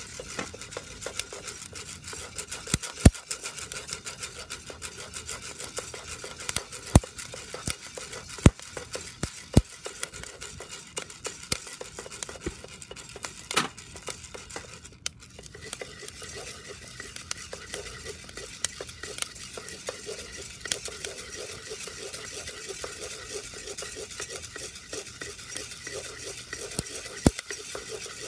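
Wooden paddle stirring roasting coffee beans in a round-bottomed cast iron pot: a steady rustle of beans being scraped and turned over, with a handful of sharp clicks scattered through it.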